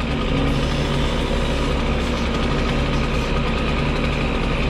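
Grapple truck's engine running steadily while it powers the hydraulic grapple crane.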